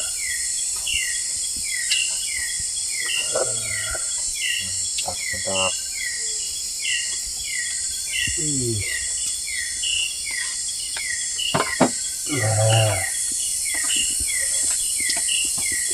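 Forest ambience: a steady high insect drone with a call of short falling chirps repeated about three times a second, and a few brief low voices.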